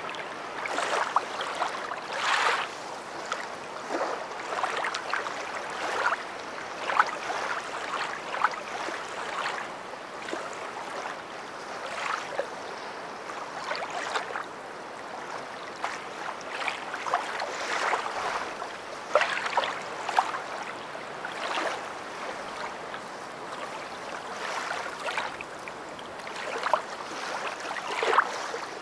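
River water flowing: a steady rush broken by many small, irregular splashes and gurgles.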